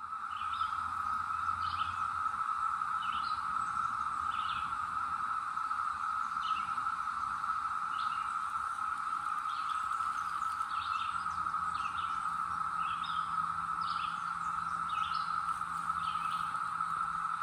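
Chorus of Brood X periodical cicadas, a steady unbroken drone that starts right at the beginning. Short high bird chirps repeat over it about once a second.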